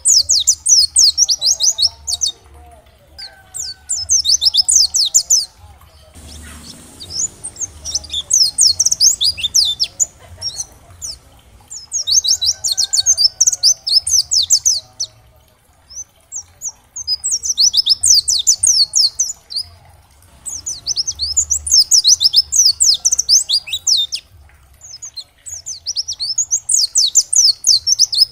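Pleci (white-eye) singing in repeated bouts of fast, high twittering notes, about seven bouts, each a few seconds long with short pauses between.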